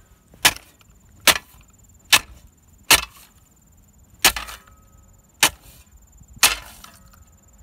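Hammer blows, seven sharp strikes about one a second, beating on an object laid in the grass to knock a small part out of it.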